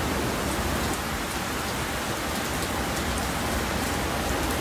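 Heavy rain pouring steadily: a dense, even hiss.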